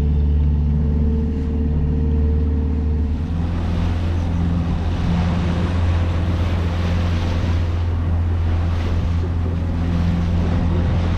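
Motorboat engine running steadily, then opening up about three seconds in, with its pitch rising and the rush of water and wind growing loud as the boat speeds up.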